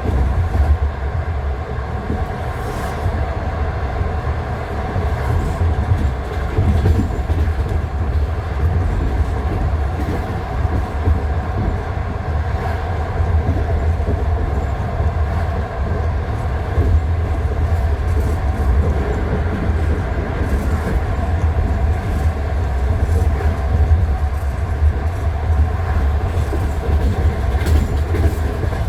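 Passenger train wheels knocking over the rail joints of jointed track, heard from inside the carriage: a steady low rumble with a knock every few seconds.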